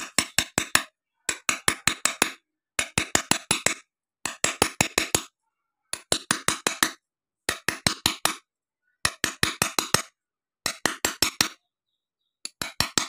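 A hand tool tapping on a glass sheet: quick clinks in bursts of six to eight, each burst fading, repeating about every one and a half seconds with silence between.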